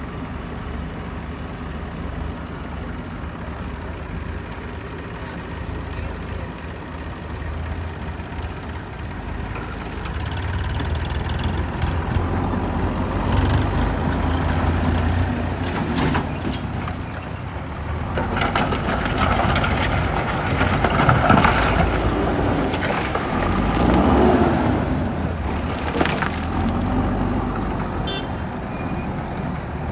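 Diesel engine of a JCB backhoe loader running under work, growing louder about ten seconds in. A faint high whine rises at the same point. Scattered knocks and clatter come in the second half, loudest a little after halfway.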